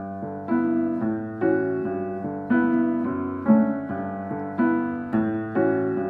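Background piano music playing slow, sustained chords, with a new chord struck about once a second.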